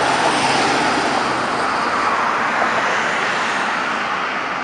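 City road traffic, with an older Class C motorhome passing close: a steady rush of engine and tyre noise, loudest in the first second and slowly easing off.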